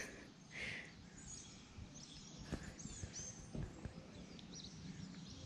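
Faint outdoor ambience with small birds chirping now and then, a brief soft rush of noise about half a second in, and a few light clicks.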